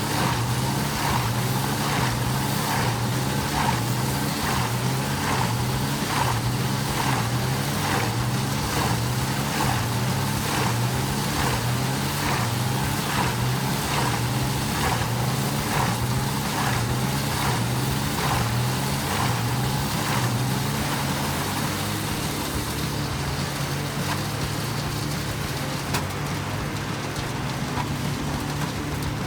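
Wood chipper's engine running steadily under load, with a quick series of sharp cracks and knocks as wood is fed through and chipped. The cracking thins out about twenty seconds in, leaving mostly the engine.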